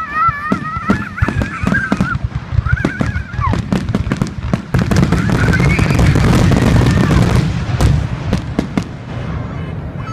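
Fireworks going off in quick succession: a string of sharp bangs that thickens about halfway through into a dense run of rapid crackling and booming, then thins out near the end.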